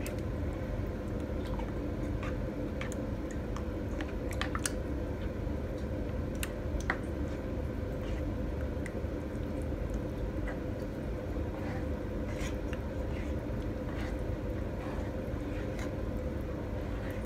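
A spatula stirring eggs into thick béchamel sauce in a pan: soft wet squishing with scattered light clicks of the spatula against the pan, over a steady low hum.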